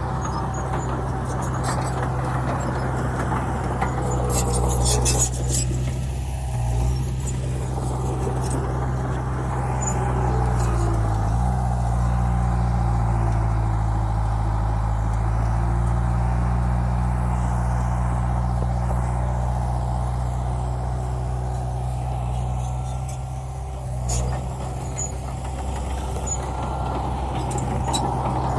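Dump truck's heavy diesel engine running steadily, its pitch shifting up and down about ten seconds in, with a short hiss about five seconds in.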